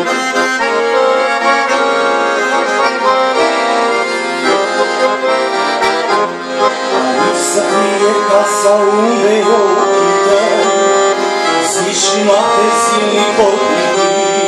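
Accordion playing an instrumental melody over held chords.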